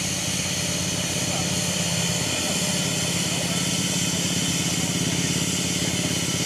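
A small engine running steadily at idle with a quick, even pulsing; its speed drops a little about two seconds in.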